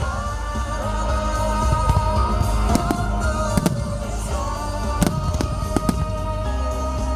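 Fireworks going off in sharp bangs about once a second over loud show music with a sustained melody.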